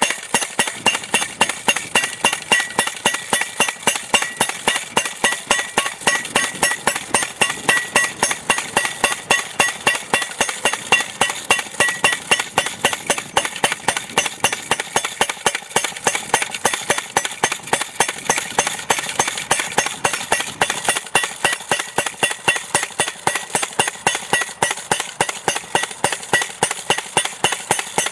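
Propane-powered Propane Hammer post driver with a top-mount adapter hammering a steel U-channel sign post into the ground: a steady, rapid run of sharp metal-on-metal blows, roughly three a second, without a break.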